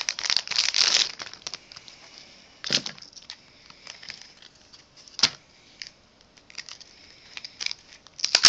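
Plastic packaging crinkling as a mailed package of trading cards is unwrapped by hand. There is a dense crackle through the first second, then scattered sharp crackles and clicks.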